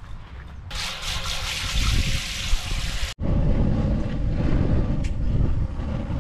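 Propane hissing as the tank valve is opened, then, after a sudden break about three seconds in, a propane burner running under a large pot with a steady low rumble.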